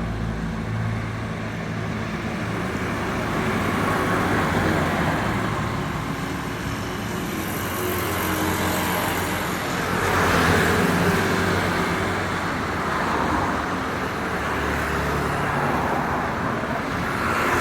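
Traffic on a main road: a steady stream of cars and motorbikes running past, with engine hum and tyre noise swelling as vehicles go by, loudest about ten seconds in.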